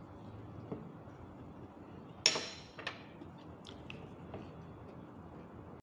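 Tableware clinking while she eats: one sharp clink about two seconds in, then a few light clicks, over a faint steady room hum.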